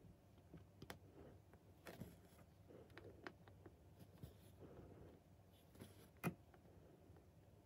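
Cross-stitch needle and floss passing through 18-count Aida fabric: faint scratchy rustles of thread being drawn through, with scattered small taps, the sharpest a little over six seconds in.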